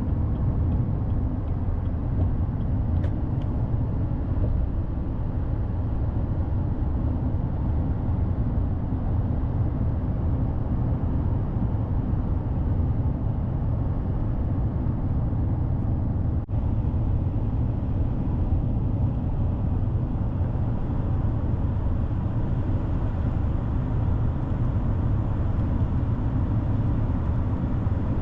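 Steady road and engine noise of a truck driving on the highway, heard from inside the cab: an even, low rumble with no changes in pitch.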